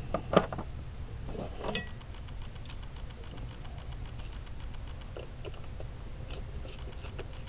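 Light, irregular clicks and ticks of a ratchet wrench working a bolt out in a car's engine bay, with one sharper click about half a second in. The bolt turns out not to be tight. A steady low hum runs underneath.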